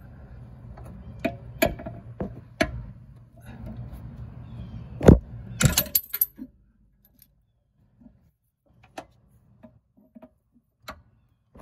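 Metal clinks and knocks of tools and parts being handled while something is wedged under the serpentine belt tensioner to hold it in the loosened position. A few separate clinks, a loud knock about five seconds in and a quick cluster of clinks right after, then only scattered faint ticks.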